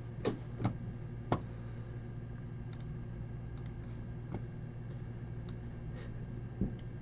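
Computer mouse clicking a handful of times at irregular intervals, the sharpest clicks in the first second and a half and another near the end, over a faint steady low hum.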